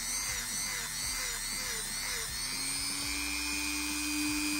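Handheld rotary tool spinning a small wire cup brush against the inside threads of a knurled steel collar, scrubbing off dirt and rust, with background music over it.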